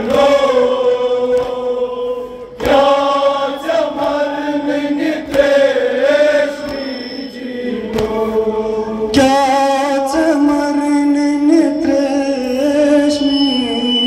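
Men's voices chanting a Kashmiri noha, a Shia lament for Imam Husain, in long, sustained melodic phrases whose pitch steps up and down between lines.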